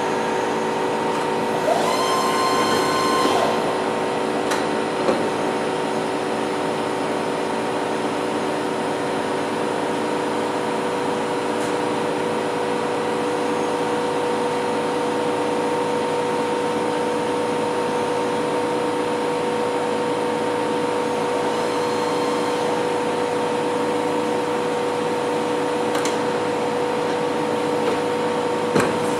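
Novar CNC bed mill running: a steady mechanical hum with a constant whine. About two seconds in, a higher whine sounds for a second or so, and a few short clicks follow later.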